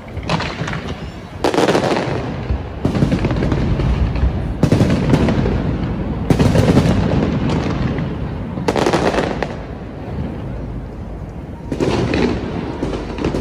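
Fireworks display going off: about half a dozen loud booming bursts at uneven gaps of one to three seconds, with continuous crackling in between.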